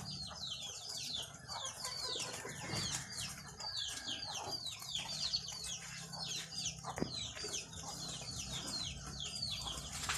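Many birds chirping together: short high chirps that fall in pitch, several a second and overlapping, over a faint steady low hum, with one sharp click about seven seconds in.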